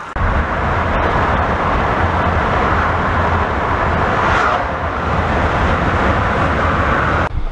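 Road and wind noise inside a car at highway speed: a steady rushing with a heavy low rumble, swelling briefly about halfway through as an oncoming lorry passes.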